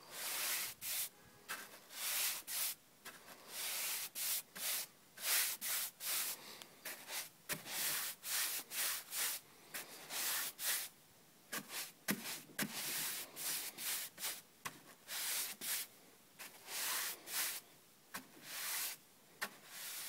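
Paintbrush bristles swishing over cedar boards in repeated short strokes, about one or two a second, as a wet brush lays on a waterborne clear coat.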